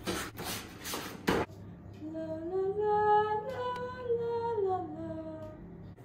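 A woman's voice humming a short wordless tune that steps up in pitch and then back down. It is preceded by a few short rustling bursts, the sharpest about a second and a half in.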